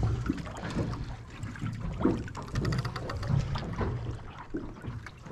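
Water lapping and sloshing against the hull of a small boat, with scattered small knocks and clicks.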